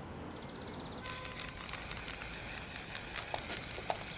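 Aerosol spray-paint can hissing with a crackly sputter as paint is sprayed onto asphalt, starting abruptly about a second in.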